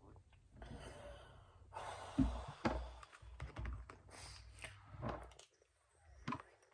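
A long breath out, then a spoon tapping and scraping in a plastic food container as it is pulled across the table, with a couple of low knocks and scattered clicks.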